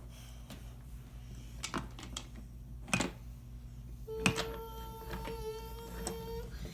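Wooden toy train pieces clicking and knocking a few separate times. About four seconds in, a steady pitched hum starts and holds for over two seconds.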